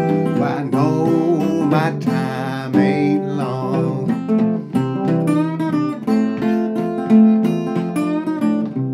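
Acoustic guitar playing an instrumental break in a blues song, picked and strummed, with some notes bent and wavering.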